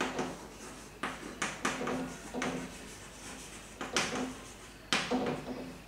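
Chalk writing on a blackboard: a run of short taps and scrapes at irregular intervals as the letters are formed.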